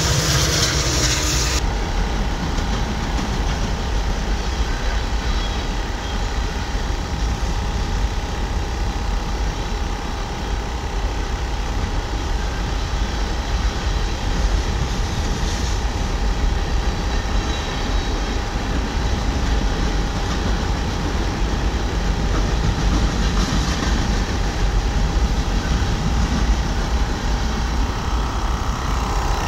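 A passing train rumbling steadily, heard over a GSPSCN dual-cylinder 12 V portable air compressor that keeps running as it inflates a truck tyre.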